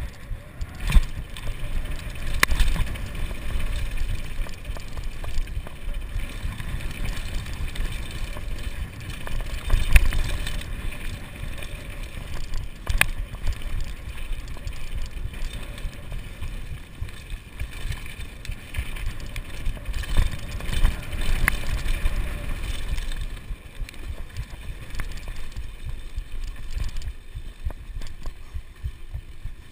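Kona Supreme Operator downhill mountain bike descending a dirt trail at speed: a steady rumble of tyres on dirt and wind on the camera microphone, with rattles and sharp knocks from the bike over bumps and landings, the loudest about 1, 2.5, 10, 13 and 21 seconds in.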